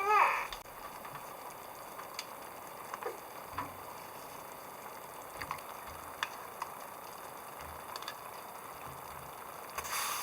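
A brief high gliding cry ends in the first half second. Then a steady hiss with sparse faint crackles and ticks from a campfire cooking fire, with a short louder rush of noise near the end.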